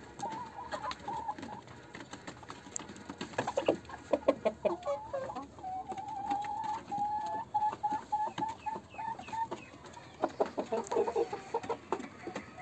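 Desi chickens clucking, with a long run of quick, evenly spaced notes in the middle and bursts of clucking about three and a half seconds in and again near the end.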